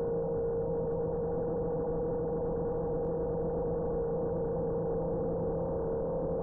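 5-inch FPV quadcopter's motors and propellers humming at a steady, unchanging pitch, with one clear mid tone over a lower one and a rough noise beneath.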